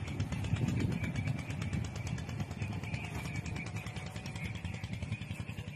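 A small engine idling steadily, with a fast even pulse, growing slightly fainter.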